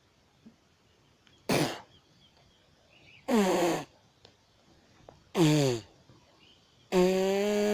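A boy gagging and retching at a foul taste. There is a short spitting or coughing burst about a second and a half in, then three drawn-out retching groans. The first two fall in pitch and the last is held level for about a second.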